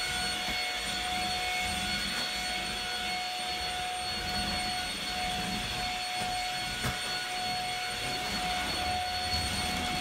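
Corded stick vacuum cleaner running steadily as it is pushed over a wood floor, with a constant high motor whine. One light knock about seven seconds in.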